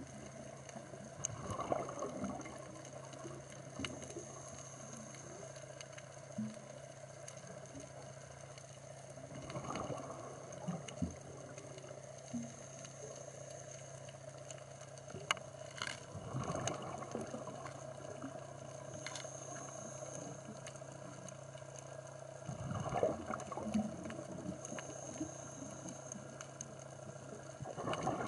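Underwater sound: a scuba diver's exhaled bubbles gurgle up in bursts about every six seconds over a steady hum.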